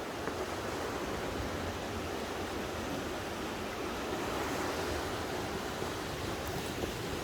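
Sea surf washing against the shore in a steady rush, swelling a little about two-thirds of the way through.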